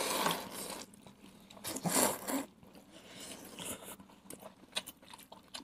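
Several people slurping noodles and chewing, in a few short hissy bursts, the loudest at the start and about two seconds in, with fainter smacks and clicks after.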